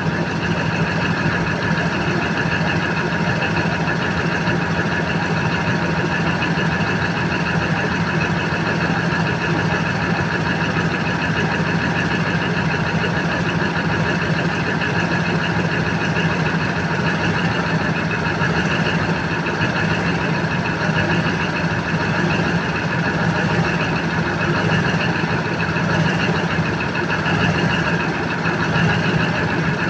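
Cummins KTA50 16-cylinder diesel engine idling steadily on a test run after a general overhaul.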